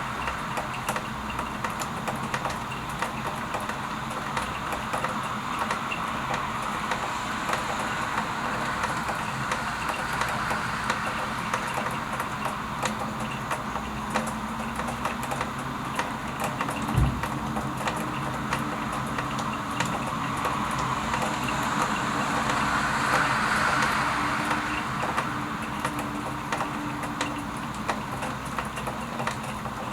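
Steady rain falling, with the patter of many individual drops ticking throughout. A single low thump about 17 seconds in, and a faint low hum that comes in and fades out over the second half.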